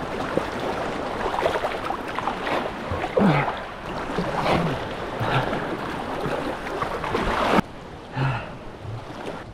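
Sea water sloshing and splashing close to the microphone, with irregular swells; it cuts off abruptly about three-quarters of the way through.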